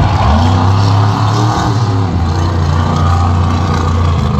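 Bounty Hunter monster truck's engine revving hard. The pitch rises in the first second or so, then holds at high revs as the truck drives across the dirt.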